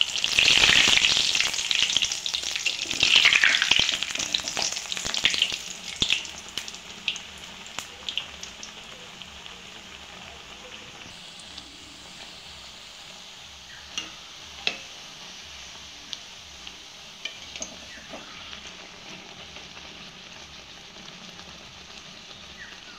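Nanpuri dough deep-frying in hot refined oil in a metal kadai: loud, vigorous sizzling for the first five seconds or so while the flat spatula presses the puffing bread, then settling to a steadier, quieter sizzle with a few sharp clicks.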